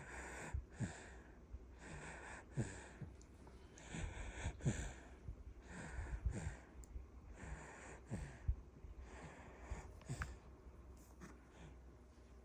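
A three-month-old baby breathing in her sleep, with soft, noisy breaths in and out about every two seconds and light snoring snuffles through the nose.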